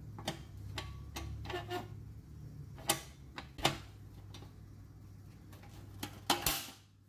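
Irregular sharp clicks and taps from a hand working a reproduction fender skirt's spring latch (its lock-unlock bar) and handling the panel, with a brief scraping rasp near the end.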